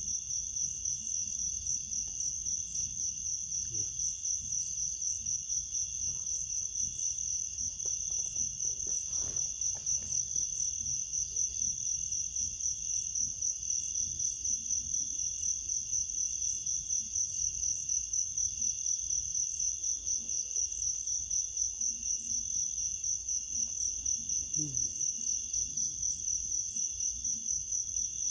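Insects, crickets by their sound, trilling in a steady high-pitched chorus with a fast regular pulse.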